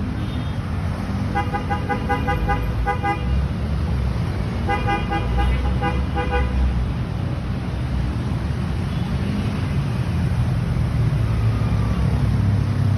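Angkot minibus horn tooting in two rapid strings of short beeps, about four a second, each string lasting around two seconds, over a steady rumble of street traffic.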